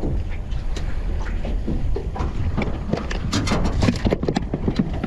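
Wind buffeting the microphone as a low, ragged rumble, with scattered sharp clicks and taps that come thickest about three to four and a half seconds in.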